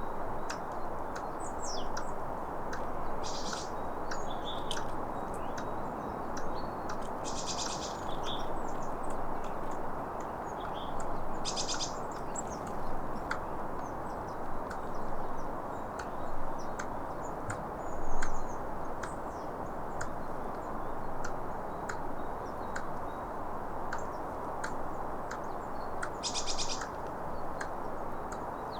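A squirrel clicking, a steady series of sharp single clicks about once a second. Short, rapid high bird trills break in four times.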